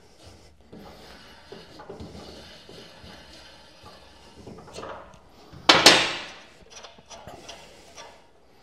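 Thread-cutting tap turned by hand through a metal block in a bench vise, with faint, uneven scraping and creaking as it runs out through the bottom of the threaded hole. A single loud clunk about halfway through.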